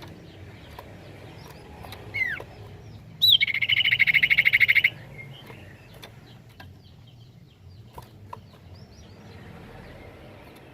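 Common iora (cipoh) calling: a falling whistled note about two seconds in, then a sharp note opening into a loud, rapid trill that lasts about a second and a half. Faint chirps are scattered through the rest.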